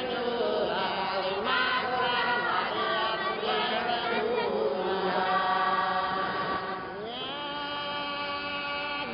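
Crowd of men and women singing a hymn together, a slow chant-like religious song. About seven seconds in the voices slide up into a new held phrase, a little quieter.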